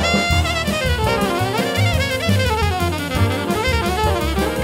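Jazz septet playing live: a saxophone carries a bending melody line over a walking double bass line, drum kit and piano.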